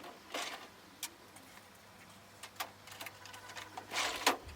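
Clothes being handled and folded: soft fabric rustling with a brief swell near the start and a louder one about four seconds in, and scattered light clicks and ticks between.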